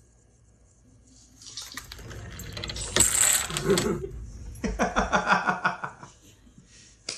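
Dog treats released by a home-made cardboard Rube Goldberg machine, rattling and clattering down with many sharp clicks. The clatter grows to its loudest a few seconds in, then gives way to a quick run of short, evenly spaced sounds as the dogs get at the treats.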